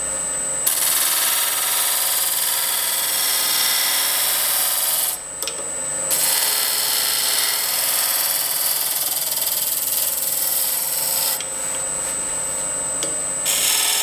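Point tool cutting a chamfer into the mouth of an end-grain wooden insert spinning on a wood lathe at turning speed: a steady scraping hiss of the cut, in two long passes with a short break about five seconds in, fading lighter near the end before one more brief cut.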